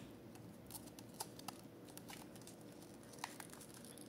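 Faint scattered clicks and taps of fingernails on a small plastic eyeshadow palette case as it is pried at to open it, with a few sharper clicks. The case is sealed tight and does not open easily.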